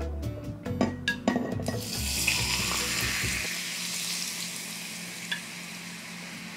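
Hot oil poured into a mason jar of chili oil ingredients, sizzling hard and bubbling up because it is poured fast. A few clinks come about a second in, the sizzle starts about two seconds in, and it then slowly dies down.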